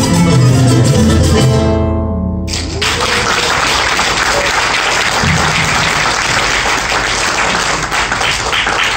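A choro ensemble of acoustic guitars and small plucked string instruments plays its last notes and lets a final chord ring out. About two and a half seconds in, an audience breaks into steady applause that continues to the end.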